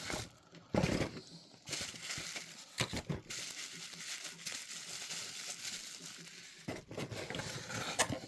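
Plastic packaging rustling and crinkling while small parts are rummaged through, with a few light clicks and knocks of parts being handled.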